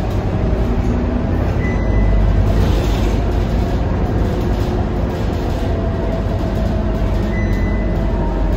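Scania K230UB diesel bus on the move: a steady low engine and road rumble with drive noise, no pauses or sudden events.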